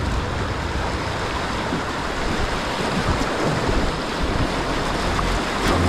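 Whitewater rapids rushing past an inflatable kayak in a steady, unbroken rush of water, with low rumbling buffeting on the camera microphone.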